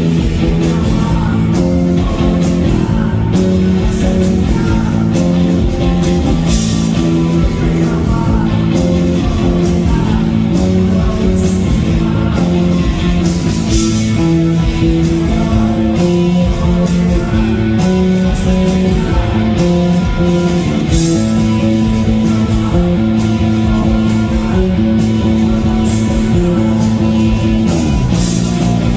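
Rock band playing live and loud: a Stratocaster-style electric guitar plays held melodic notes over a drum kit.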